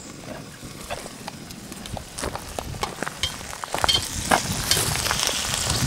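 Sauerkraut frying in pork grease in a hot pan over a wood fire, sizzling, with a spatula scraping and knocking against the pan as it is stirred. The sizzle grows louder about halfway through.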